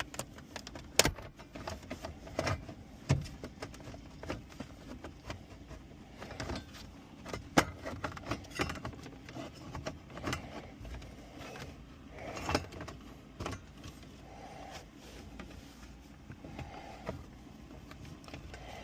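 Irregular clicks, taps and rattles of plastic dashboard trim and small screws being worked loose with a Phillips screwdriver under a car's steering column, with heavy breathing.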